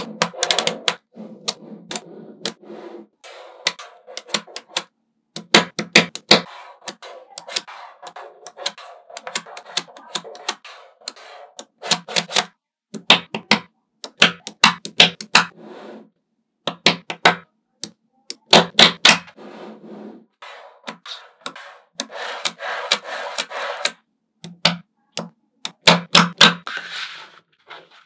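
Small magnetic balls clicking and snapping together in quick clusters of sharp clicks, with softer rattling between the clusters as the balls are handled.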